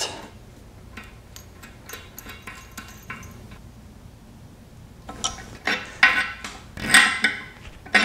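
Small metal hardware clinking as toilet tank bolts, washers and nuts are handled and a nut is threaded onto a bolt by hand. Light, faint clicks for the first few seconds, then louder clinks and rattles from about five seconds in.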